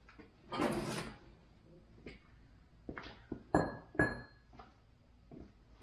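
A heavy metal bull guard on a semi truck is swung down on its hinges: a rattling scrape about half a second in, a few light knocks, then two sharp ringing metal clanks a little after halfway as it comes to rest.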